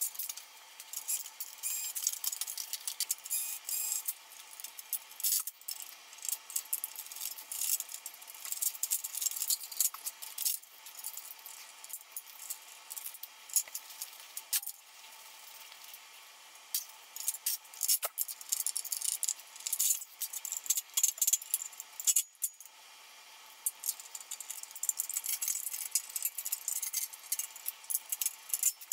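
Sped-up clatter of a Sony stereo system being taken apart by hand: a dense run of clicks, knocks and rattles from loose metal brackets, screws, plastic parts and circuit boards against the steel chassis, with a couple of brief quieter pauses.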